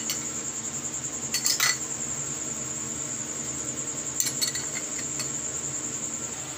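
Steady high-pitched trilling of crickets, with a few short clinks of glass about a second and a half in and again around four seconds.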